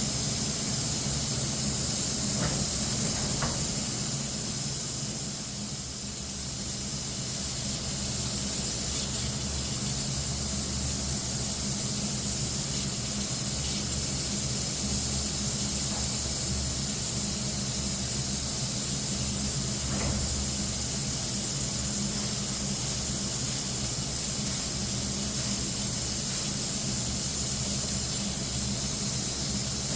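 Compressed-air spray gun hissing steadily as Cerakote ceramic coating is sprayed onto rifle barrels, over a steady low hum, dipping briefly about five seconds in.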